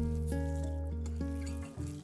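Music: sustained guitar notes over a held bass note, fading briefly near the end.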